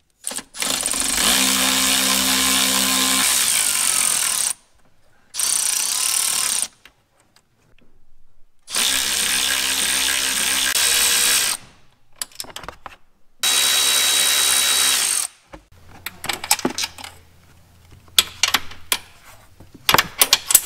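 Milwaukee Fuel cordless ratchet running in four separate bursts of a few seconds each, spinning out the 13 mm nuts on a C8 Corvette's front strut top mount. Light metal clicks and rattles of the loosened nuts being handled follow near the end.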